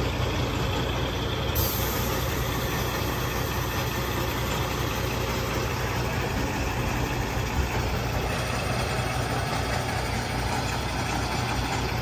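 Vacuum tanker truck's diesel engine idling steadily, an even low drone.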